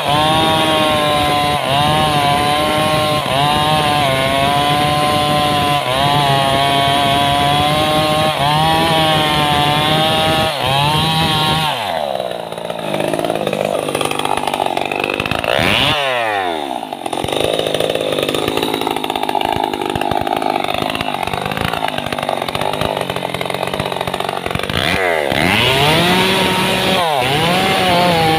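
Stihl MS 381 two-stroke chainsaw cutting into the trunk of an old teak tree, its engine note sagging and recovering as the chain bites under load. About twelve seconds in the pitch drops, with two sharp falling sweeps and a rougher stretch, until the saw is revved up high again near the end and goes back into the cut.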